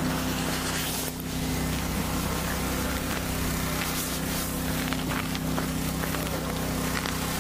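A steady low mechanical hum under a constant hiss, with a few faint clicks.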